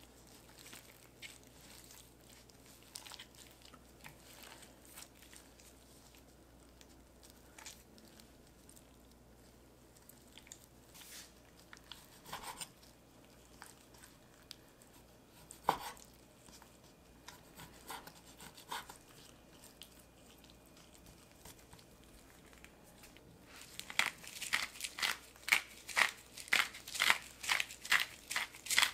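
Raw chicken thigh being handled on a wooden cutting board: soft tearing as the skin is peeled off, then scattered taps of a chef's knife cutting the meat, with one louder knock past the middle. Near the end a steady run of sharp clicks, about two a second, comes in and is the loudest part.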